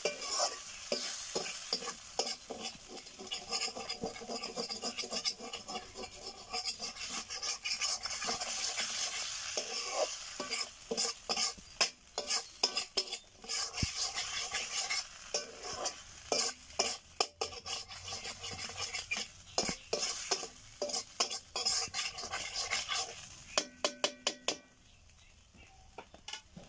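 Chicken masala sizzling in a black metal kadai as a wooden spatula stirs and scrapes it, with frequent clicks and knocks of the spatula against the pan. Near the end comes a quick run of taps, after which the sound drops away to a faint sizzle.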